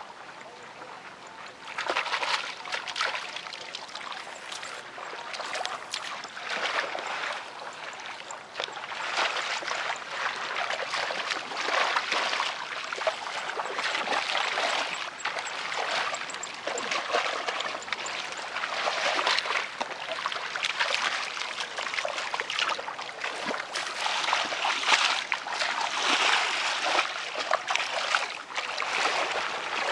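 Hands and feet splashing and sloshing through shallow muddy water, a busy, irregular run of splashes that starts about two seconds in and keeps going.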